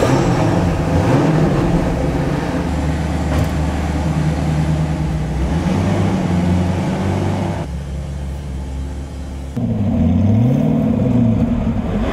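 SSC Ultimate Aero's twin-turbo V8 running at a low, uneven idle. From about ten seconds in it is louder, and the revs sag and climb again.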